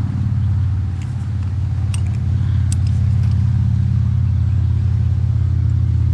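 An engine running steadily at idle, a low pulsing drone, with a few light clicks and taps over it.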